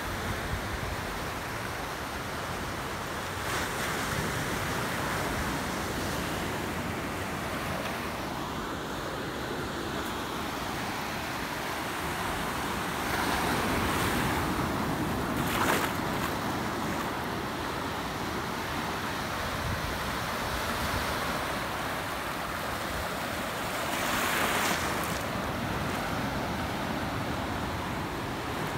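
Small sea waves breaking and washing up a sandy beach: a steady hiss of surf that swells louder three times as waves come in.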